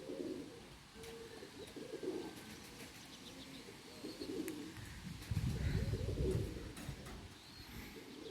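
Domestic pigeons cooing, repeated coos every second or two. A low rumbling noise about five seconds in, louder than the coos, lasts a couple of seconds.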